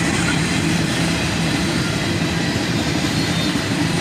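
Freight cars of a long manifest train rolling past close by: a steady rumble of steel wheels on rail.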